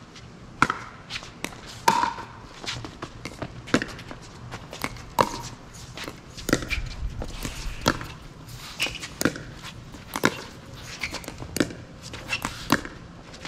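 Pickleball rally: paddles striking the plastic ball in an irregular back-and-forth of sharp pops, some with a short hollow ring.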